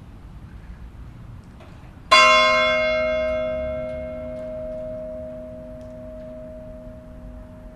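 A single stroke of a church bell about two seconds in, followed by a long, slowly fading ring. The high overtones die away within a couple of seconds while the low hum carries on.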